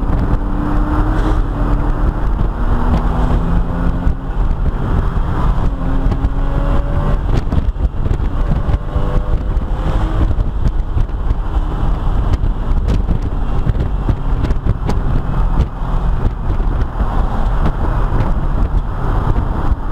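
Porsche 997 911 Carrera S's 3.8-litre flat-six engine pulling at speed, heard from inside the cabin over steady road and wind noise, its note rising and dropping back several times.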